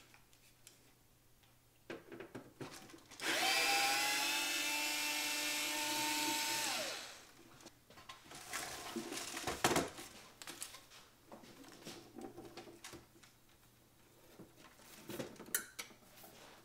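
A Hitachi cordless electric screwdriver runs for about three and a half seconds, backing out a cover screw of a Technics RS-DC10 cassette deck: a steady whine that rises slightly, then drops away as it stops. Light knocks and clatter of the metal casing and screws follow, with one sharp knock, then scraping as the steel top cover is lifted off near the end.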